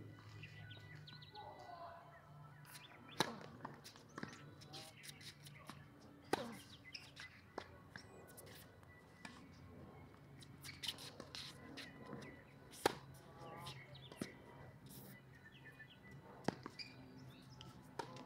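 Tennis ball struck by rackets and bouncing on a hard court during a rally: a series of sharp pops one to three seconds apart, with birds chirping faintly behind.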